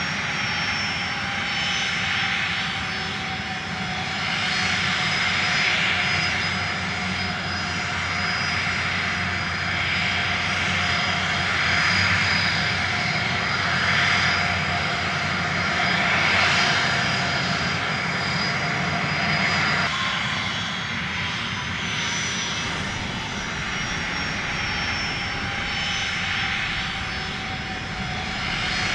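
Motors and propellers of a small camera drone flying low, a steady whine whose pitch drifts slightly, with swells of rushing air.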